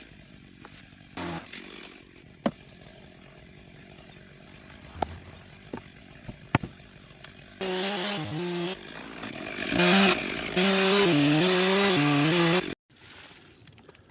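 Stihl chainsaw cutting into a large Douglas fir log, its engine pitch wavering under load at high revs, then cutting off suddenly. Before it starts, about halfway in, there are only a few sharp ticks and knocks.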